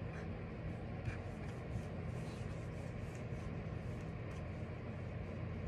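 Steady low room hum with a few faint, irregular clicks from using a computer.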